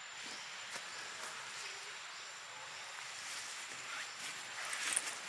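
Outdoor jungle ambience: irregular rustling and crackling, like movement through dry leaves, over a steady high insect hum. The crackles grow busier toward the end, loudest about five seconds in.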